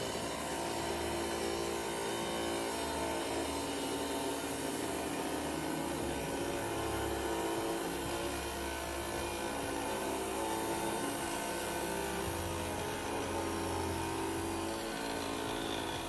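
Diamond-blade lapidary trim saw running steadily as it cuts through a geode, a constant motor hum with blade hiss.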